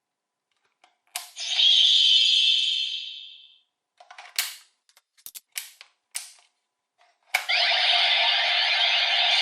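DX V-Buckle toy transformation belt being worked by hand. A plastic click about a second in sets off a short electronic sound effect from its small speaker. A run of sharp clicks follows, then another click near the end starts a steady electronic sound effect.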